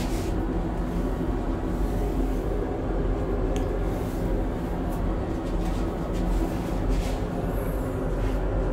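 Stir-frying in a large metal pan: a spatula scrapes and tosses pork and vegetables a few times over a steady low rumble.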